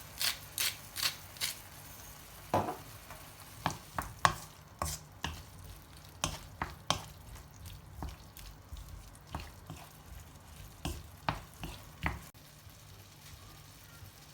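Kitchen food-preparation sounds: a few quick, evenly spaced cutting strokes, then scattered irregular clicks and knocks of utensils against cookware.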